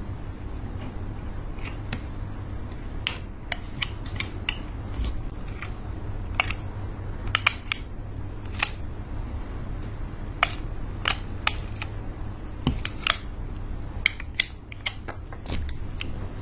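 A craft knife blade slicing thin pieces off a lipstick: a string of sharp, crisp clicks at irregular intervals as each slice snaps off, over a steady low hum.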